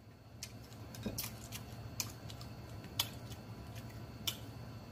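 A man chewing a mouthful of rice and sausage close to the microphone: scattered short mouth clicks and smacks over a steady low hum.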